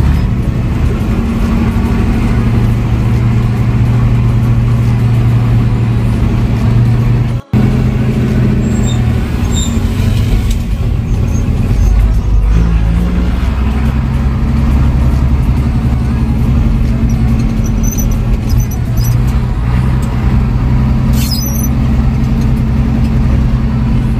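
Old Scania-Vabis truck's diesel engine running steadily as the truck drives, a deep, even engine note. The sound cuts out for a moment about seven seconds in, and the engine note shifts lower about halfway through.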